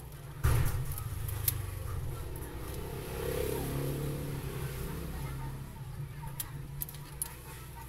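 Rubber bands stretched and snapped around a phone's body: a sharp snap about half a second in, then a few light clicks and handling sounds. A steady low rumble of traffic runs underneath.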